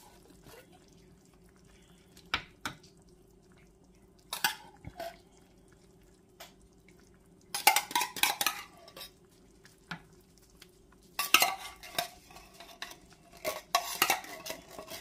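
Metal utensils and cookware clinking and scraping in several short clusters of clatter, over a low steady hum.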